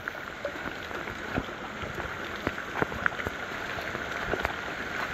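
Steady rain falling, with many separate drops striking close by.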